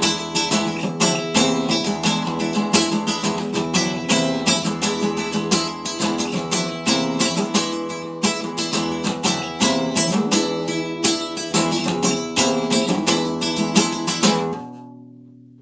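Instrumental music with acoustic guitar strumming in a steady rhythm, ending on a final chord that rings out and fades away about a second before the end.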